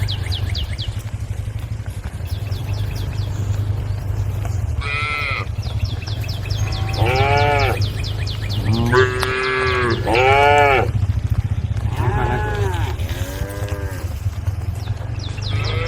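Cattle mooing, about six separate calls that each rise and fall in pitch, starting about five seconds in, over a steady low hum.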